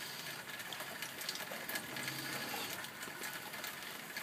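Steady rain hiss with scattered light clicks through it.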